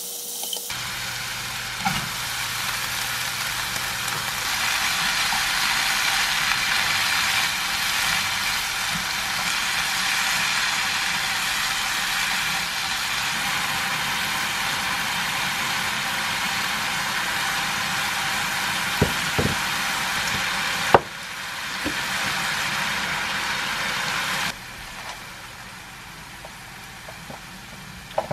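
Pork and bean sprouts sizzling in a frying pan as they are stir-fried, with a few sharp clacks of the spatula against the pan. The sizzle grows louder a few seconds in, then drops suddenly about two-thirds of the way through and again a few seconds later.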